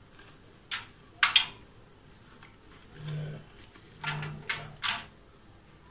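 A knife scraping the large seeds out of the hollow of a ripening cucumber: a few short scrapes, two near the start and three quick ones a little after halfway.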